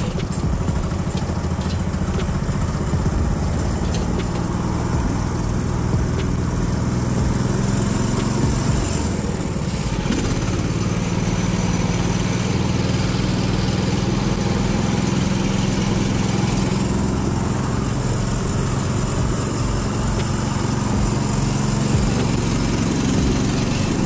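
Engine of a small off-road vehicle with wide tyres running steadily while driving. The engine note dips briefly about ten seconds in and rises again near the end.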